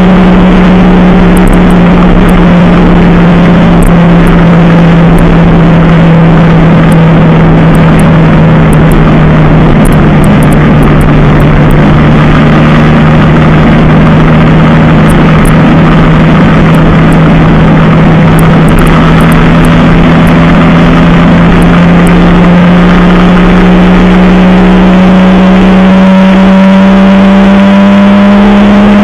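Sport motorcycle engine running hard at high, near-steady revs on a high-speed run, heard from the bike under heavy wind rush. The pitch sags slightly midway and climbs again near the end as the throttle is opened further.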